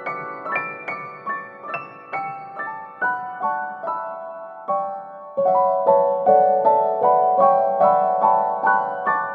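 Background piano music: a gentle melody of single struck notes, several a second, growing fuller and louder about five seconds in.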